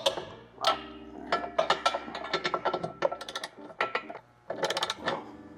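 Ratcheting torque wrench being worked on the hitch's mounting nuts: short bursts of ratchet clicks in irregular strokes, as each nut is brought up to 45 foot-pounds.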